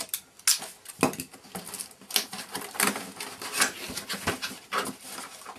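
Knife cutting the tape on a cardboard box and the box being handled: a run of irregular scrapes, clicks and rustles.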